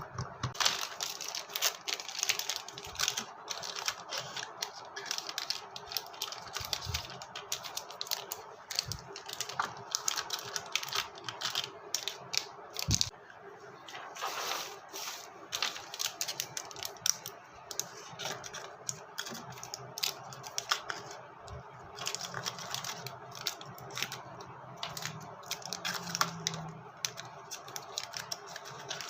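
Dense, irregular clicks, taps and clatters of candy packets and small containers being handled and set in place while restocking.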